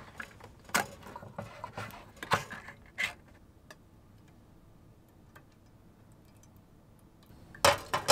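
A few sharp metallic clicks and clinks as a tin of soup is opened and handled. About three-quarters of the way through comes a louder rapid cluster of metallic clicks and clatter as a saucepan is set on a gas camping hob and the burner is lit.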